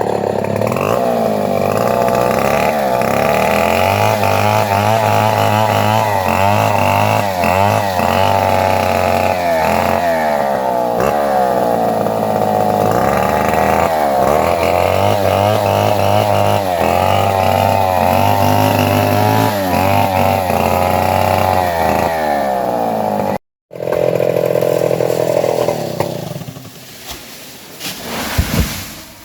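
Chainsaw running at high revs while cutting through a coconut palm trunk, its pitch wavering up and down under load. It breaks off for a moment near the end, then dies away in the last few seconds.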